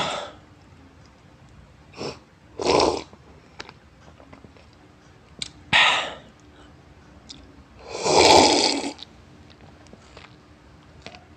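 Noisy slurping sips from a foam cup, in five separate bursts. The longest and loudest, about a second long, comes near the end.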